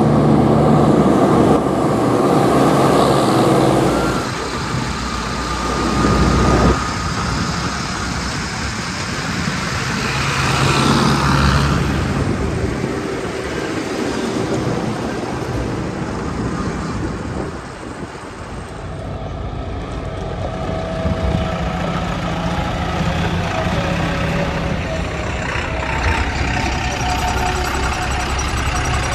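Diesel engines of heavy working vehicles running: a JCB 3DX backhoe loader driving on a road, then tractors and a Tata tipper truck. The sound changes abruptly about four seconds in.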